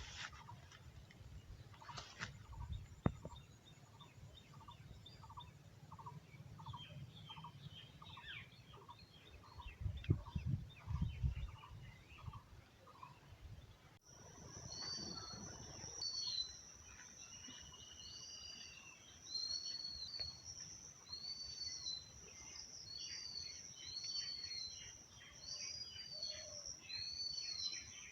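Birds calling outdoors, faint. For the first half one short call repeats about twice a second over gusts of wind on the microphone. After a cut about halfway through, a steady high insect drone runs with short arching bird notes repeated over it.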